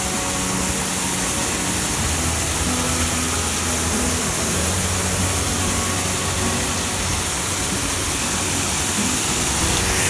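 Steady rush of water from a small waterfall pouring over a stone canal wall and splashing onto rocks, with background music playing over it.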